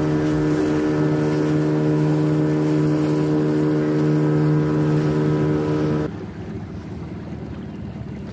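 Fishing boat's outboard motor running at a steady low speed, then cut off about six seconds in as the boat comes in to the dock, leaving a lower rush of wind and water.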